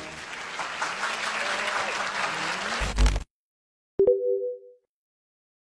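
Studio audience applause that cuts off abruptly with a thump about three seconds in. About a second later comes a short electronic chime of two steady tones sounding together, with the logo sting.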